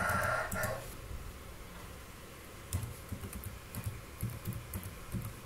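Computer keyboard typing: a scattering of irregular keystrokes starting about a third of the way in. A short pitched sound fades out within the first second.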